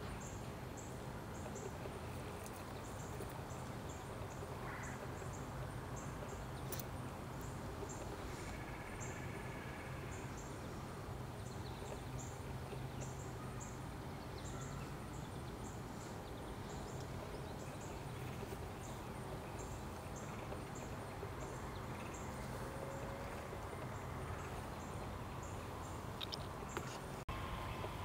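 Woodland ambience: a steady low background rumble, with a short high note repeated about once a second and a few faint bird calls.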